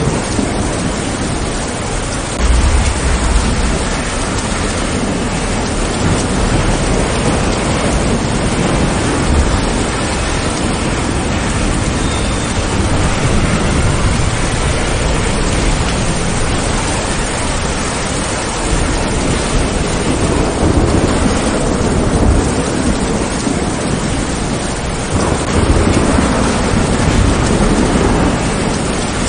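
Heavy rain falling steadily, with low rumbles of thunder rolling underneath; the rumble swells louder about two and a half seconds in and again about 25 seconds in.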